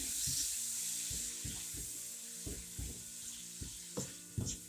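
Green chillies and spices frying in oil in a nonstick kadhai with a splash of water in the spices. A steady sizzle, with soft knocks and scrapes as a silicone spatula stirs them about once or twice a second.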